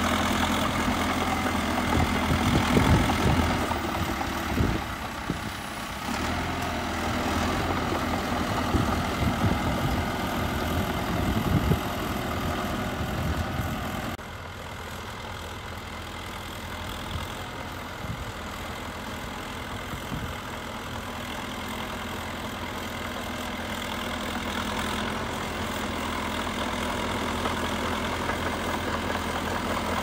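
Caterpillar D3K crawler bulldozer's diesel engine running as the dozer pushes dirt with its blade, with some knocks in the first half. About halfway through the engine is suddenly quieter and more distant, then grows gradually louder toward the end.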